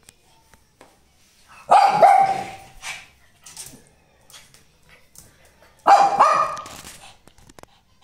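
A Shih Tzu giving playful barks: two loud bouts about four seconds apart, each a quick double bark.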